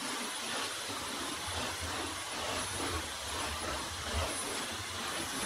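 Cordless stick vacuum running steadily while being pushed back and forth over a wood-plank floor.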